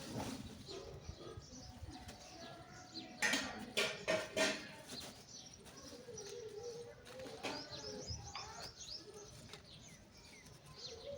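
Birds chirping in many short, high notes, with a cluster of loud sudden noises about three to four seconds in.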